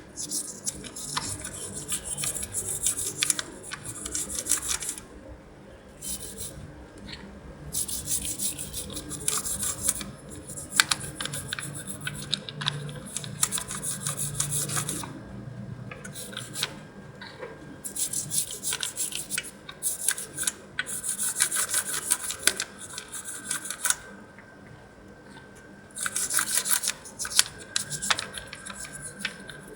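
A brush scrubbing crusted grime off a motorcycle engine block, in stretches of rapid back-and-forth strokes a few seconds long with short pauses between them.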